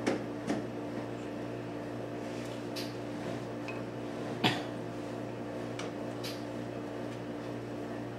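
A few light knocks and clicks as a rose engine's cutting frame and its small drive motor are handled, the sharpest about four and a half seconds in, over a steady low hum.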